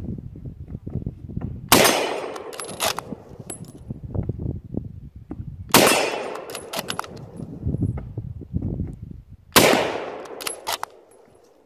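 .303 Lee-Enfield bolt-action rifle fired three times, about four seconds apart, each shot ringing out and fading. Between the shots come smaller metallic clicks and clacks of the bolt being worked to chamber the next round.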